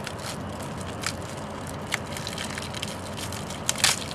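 Plastic wrapper and peel-off seal of a QuickStove fuel disc fire starter crinkling and crackling as it is unwrapped by hand: scattered small clicks with a louder crackle near the end.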